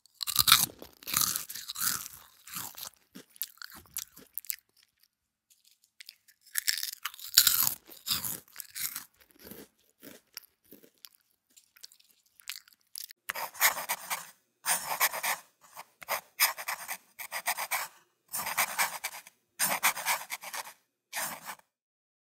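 Close-up chewing of crusty bakery bread, crisp crunches bite after bite. In the second half the chews come in a steady run of about one a second.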